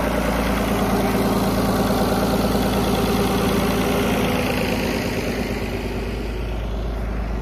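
Farm tractor engine running steadily at a low, even speed.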